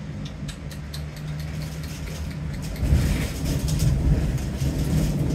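Thunder rumbling low in a storm, swelling about three seconds in, with scattered sharp ticks close by.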